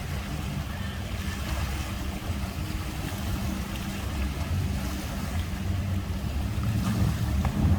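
Motorboat engine running at low speed, a steady low hum that grows a little louder near the end.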